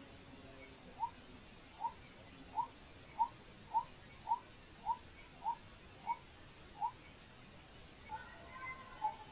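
A night animal calling a series of about a dozen short, clipped notes, a little under two a second, over the steady high chirping of crickets. Near the end a faint chatter of higher calls starts up.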